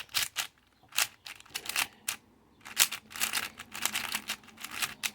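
Aosu V4 magnetic 4x4 speed cube being turned by hand: a quick, irregular run of plastic clicks and clacks from the layers, with a couple of short pauses between bursts of turns.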